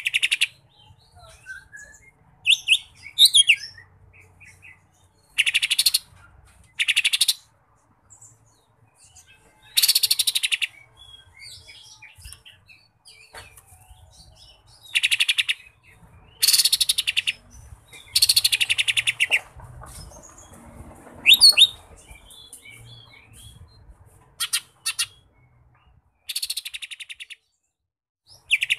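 A caged male lesser green leafbird (cucak ijo mini) sings in bursts of fast, harsh rattling trills about a second long. Short sweeping whistle notes come between the bursts.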